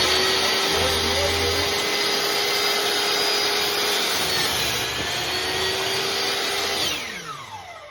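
Metabo HPT 10-inch, 15-amp compound miter saw running with a steady motor whine. The pitch dips briefly about five seconds in as the blade goes through a piece of 4x2. Near the end the saw is switched off and winds down, its pitch falling.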